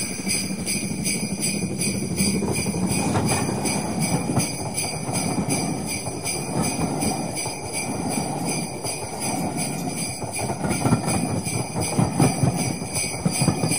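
Sleigh bells jingling in a steady, even rhythm over a continuous low rumble.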